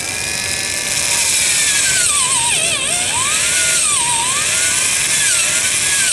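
Electric drill boring a small twist bit into an old weathered wooden telephone pole. Its motor whine swells up over the first second, then sags and recovers in pitch several times as it bogs under load, and cuts off at the end. The drill is underpowered: it "just doesn't have a lot of juice."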